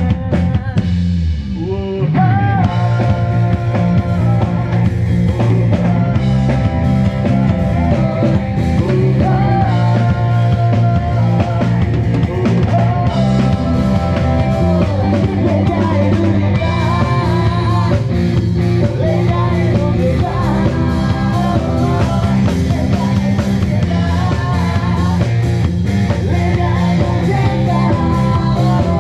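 Live rock band playing through a PA: drum kit, electric guitars and bass. The music thins out briefly about a second in, then the full band comes back in.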